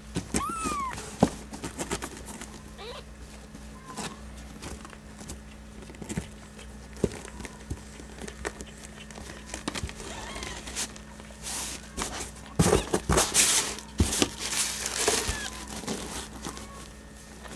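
Disposable pet pad crinkling and rustling as hands handle a newborn kitten on it, loudest about two-thirds of the way through, with a few faint high mews from the kitten.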